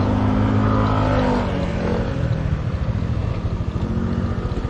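Motorcycle engine running steadily under way, its note easing down a little about a second and a half in.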